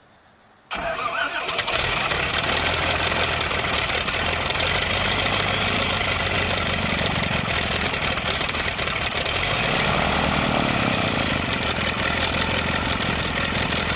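A Verner direct-drive radial aircraft engine on a light biplane starts about a second in and then runs steadily, with a low, even pulse and propeller noise.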